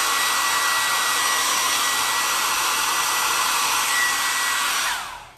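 Handheld hair dryer blowing steadily, a thin whine over the rush of air. It is switched off about five seconds in, the whine falling as the motor winds down.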